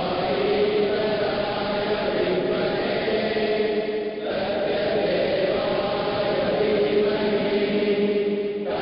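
A group of voices chanting a devotional prayer in unison, holding long lines with a short breath break about four seconds in and again near the end.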